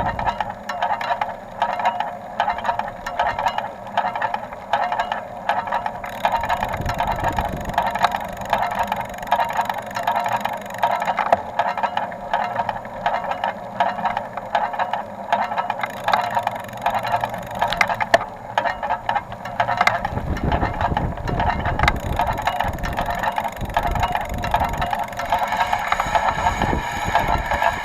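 Rear wheel of a Carrera Crossfire 2 bicycle making a fast, continuous ticking rattle as it turns. Low rumbling noise comes in about seven seconds in and again for the last several seconds.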